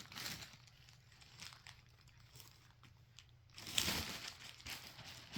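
Crinkling and rustling of the plastic wrappers from opened pin mystery packs being handled and thrown away, quiet at first and loudest for a moment about four seconds in.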